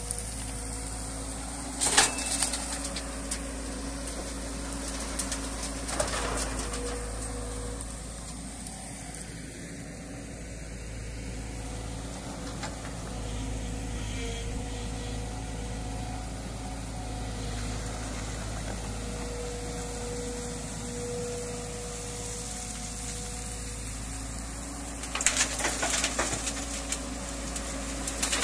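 JCB tracked excavator's diesel engine running steadily as the machine swings and scoops from the river. Rocks and gravel crash into a dump truck's steel bed, once sharply about two seconds in and again as a longer clatter near the end.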